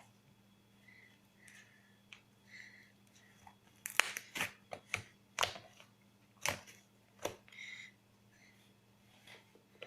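Butter slime with green clay being kneaded and squished by hand: soft squelches, with a run of sharp pops and clicks between about four and seven and a half seconds in.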